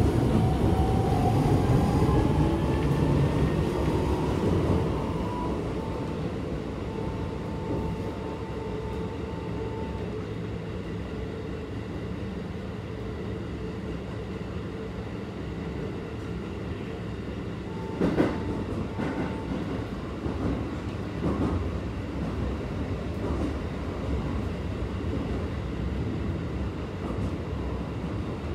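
Interior running sound of a Keikyu 1000 series stainless-steel train with a Toyo IGBT-VVVF inverter. The motor whine rises in pitch as the train accelerates over the first few seconds, holds briefly and fades, leaving a steady rumble of wheels on rail. A single sharp knock comes about eighteen seconds in.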